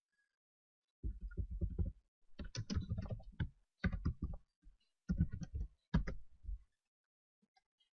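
Computer keyboard typing in several quick bursts of keystrokes, starting about a second in and stopping over a second before the end.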